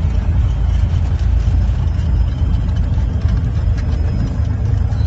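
Piper PA-28 Warrior's four-cylinder Lycoming engine idling with a steady low rumble, heard from inside the cabin.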